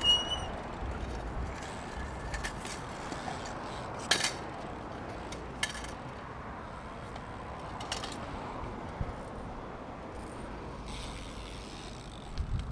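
BMX bike riding around a concrete skate park bowl: steady rolling noise from the tyres, with mechanical clicks and ratcheting from the bike and two sharp clicks about a second and a half apart. A brief high squeal right at the start.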